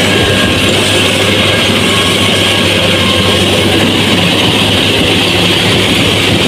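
Rice combine harvester running steadily: a loud, even machine noise with a constant low hum.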